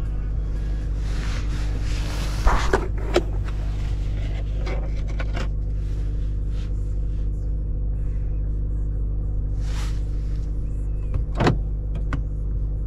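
Steady low rumble of a Honda Accord heard from inside the cabin while driving, with a few short knocks around the third second and once more near the end.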